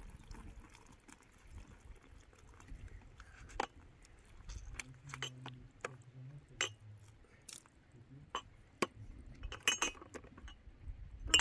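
Scattered light clinks and taps, a dozen or so irregular strikes of small hard objects.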